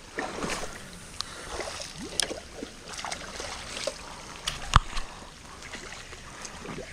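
Steady rain and water noise with scattered light clicks and taps, and one sharper click about two-thirds of the way in.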